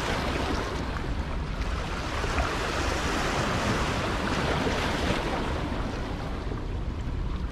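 Steady rush of water flowing out below a dam, an even noise with no break.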